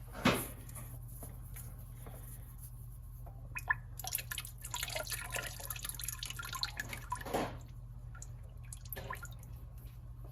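Engine oil dripping into a drain pan during an oil change, as scattered drips and ticks over a steady low hum, with a sharper knock about a second in and a busier stretch of clicks in the middle.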